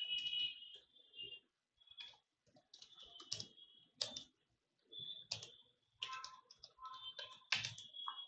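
Computer keyboard typing: key clicks in short, irregular bursts as a line of text is typed.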